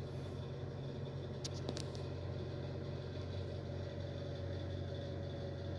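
Steady low background hum, with a few faint clicks about one and a half seconds in.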